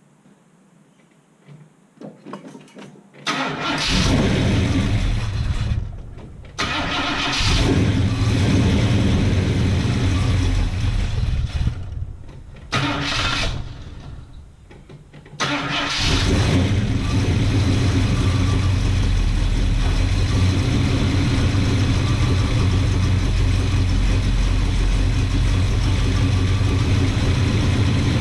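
Ford 351 Cleveland V8 in an XC Falcon cold-starting on freshly replaced spark plugs. It catches about three seconds in and falters twice, then settles into steady running from about halfway.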